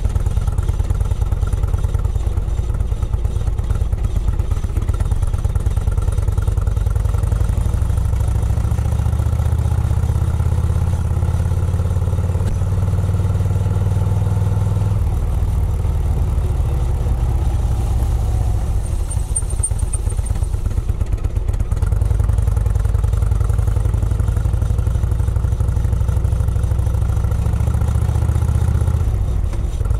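Engine of a small vintage-style open car running steadily on the road, heard close up from the bonnet with road and wind noise. The low engine note changes a little past the middle and settles back again about two-thirds of the way in.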